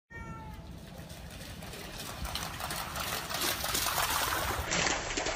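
A motor running with a fast, even rattle, growing louder over a few seconds.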